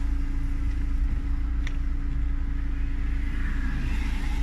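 Steady low rumble inside a Ford car's cabin while driving, engine and road noise with a constant hum. A faint click comes a little under two seconds in.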